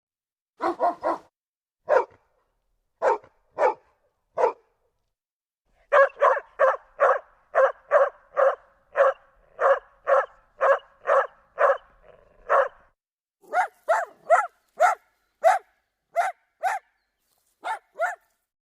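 Dogs barking in short runs: a few scattered barks, then a quick run of about three barks a second, then more spaced barks. The silent gaps and the change of background between runs suggest separate recordings spliced together.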